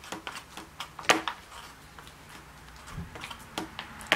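Paint roller being worked back and forth in a plastic paint tray to saturate it with topcoat: scattered sharp plastic clicks and taps at uneven intervals, the loudest about a second in.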